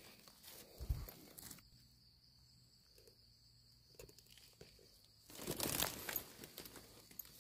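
Dry leaf litter rustling and crackling as a hand pushes in to pick termite mushrooms: a stretch of crackling with a low thump about a second in, a quiet spell, then a louder burst of crackling a little past the middle.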